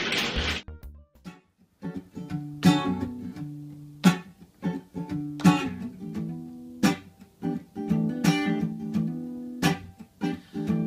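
Acoustic guitar strumming chords, with a strong strum about every second and a half. It starts after a short pause about a second in.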